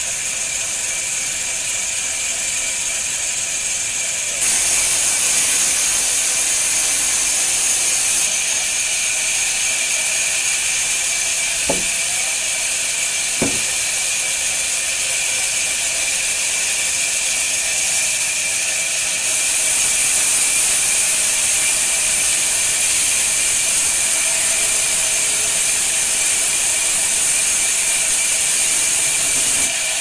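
Sawmill band saw blade running and cutting through a log, a steady high hiss that grows louder about four seconds in and again for the last ten seconds. Two sharp knocks come about a second and a half apart near the middle.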